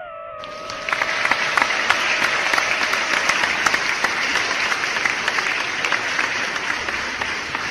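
Applause: a dense, steady clatter of many hands clapping. The last held note of the music fades out during the first few seconds.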